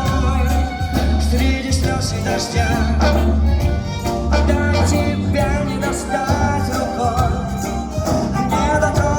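Live band music, a pop song played by a band with orchestra: a melodic lead line over a heavy, pulsing bass beat, with no sung words.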